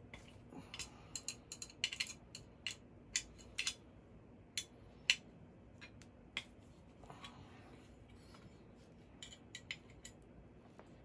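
Leveling screws on a resin 3D printer's metal build platform being loosened by hand with a tool: scattered sharp metallic clicks and clinks, in small clusters, the loudest about five seconds in.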